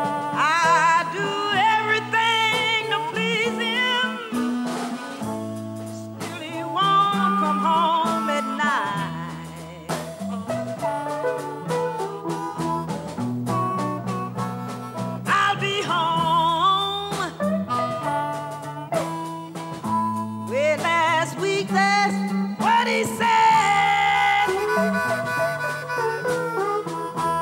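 Chicago blues band playing live: electric guitar, bass guitar and drums, with harmonica phrases coming in and out, several of them held with a wavering vibrato.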